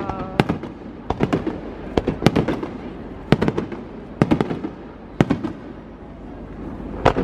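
Aerial fireworks bursting: sharp bangs in quick pairs and clusters about once a second, with a low rumble between them. The bangs thin out after about five seconds, with one last bang near the end.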